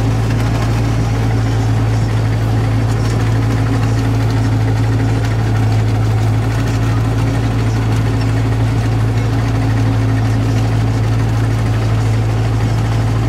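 New Holland T7030 tractor's six-cylinder diesel engine running at a steady speed, heard from inside the cab as a constant low drone.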